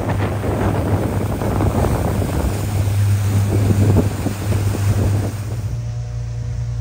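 Power catamaran underway: wind buffeting the microphone and water rushing past the hull and wake over a steady low engine hum. Near the end the sound cuts to a quieter, steady hum.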